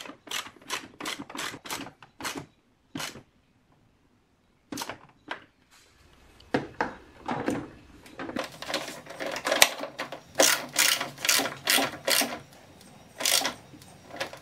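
Socket ratchet clicking in quick runs, about four clicks a second, as it tightens a 10 mm nut onto the spoiler's mounting bolt. There is a short pause a few seconds in before the clicking resumes.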